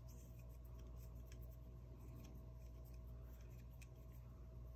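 Faint scattered ticks and scrapes of a small hex key working a set screw out of a CZ Scorpion EVO 3's safety selector, over a steady low hum.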